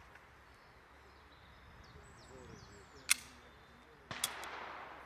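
Two pistol shots about a second apart.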